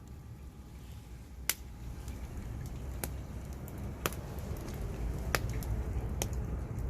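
Wood campfire crackling: sharp single pops about once a second over a low steady rumble.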